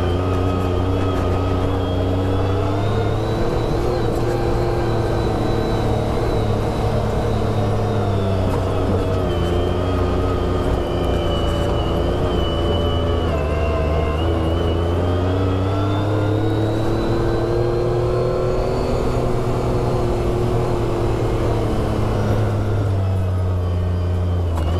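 Side-by-side off-road vehicle's engine running steadily while driving, its pitch rising and easing gently with speed, with a faint high whine following the engine note.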